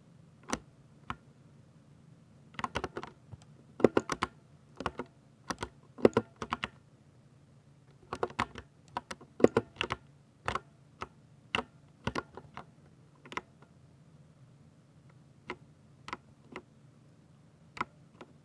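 Typing on a Ducky 60% mechanical keyboard with silver (speed) linear switches: irregular bursts of quick keystrokes, thinning to a few single key presses near the end.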